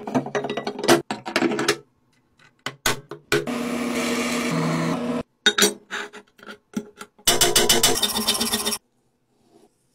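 A run of metalworking sounds in turn: a steel plate handled and set down with clatter and scrapes, then a drill bit boring into steel with a steady pitched whine for about two seconds, then rapid rasping strokes of a hand file or scraper across a steel plate.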